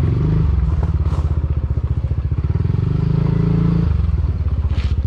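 Motorcycle engine running at low speed, its fast even firing pulses steady; the engine note rises a little past the middle and drops back about four seconds in.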